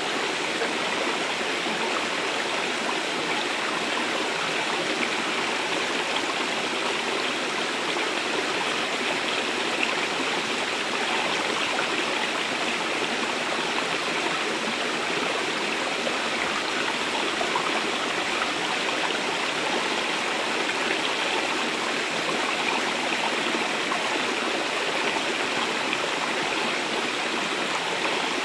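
Shallow, rocky stream flowing over and between boulders: a steady rush of running water.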